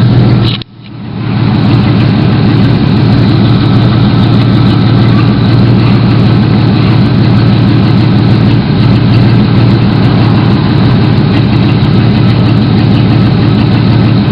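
Chevrolet S10 Blazer's 4.3-litre V6 idling steadily while it warms up, with a brief dropout in the sound about half a second in.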